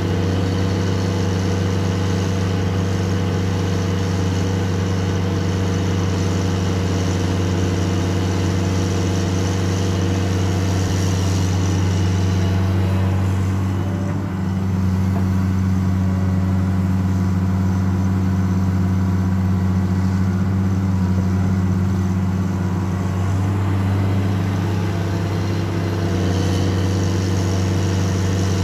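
Caterpillar 336D L ME hydraulic excavator's six-cylinder C9 diesel engine running steadily under working load as the machine digs and swings with a bucket of clay. The higher part of the sound drops away about halfway through, with a brief dip in level, and comes back near the end.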